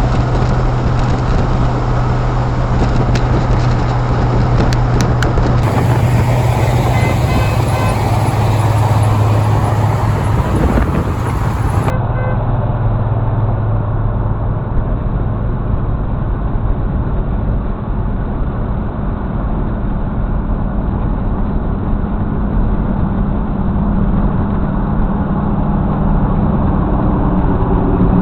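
Vehicle driving at road speed: a steady low engine drone under road and tyre noise.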